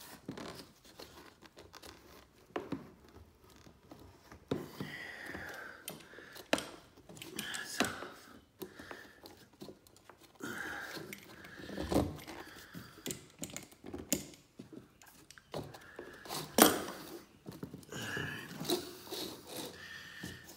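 Spline roller pressing spline and extra-strength screen mesh into the groove of a window-screen frame: irregular scraping, crinkling and clicks, with a few short squeaks.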